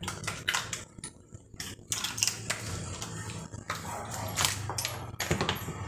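Plastic housing of a Bosch electric drill being pried apart with a homemade opening tool: a quick run of clicks and knocks, then scraping with a few sharp cracks as the housing halves separate.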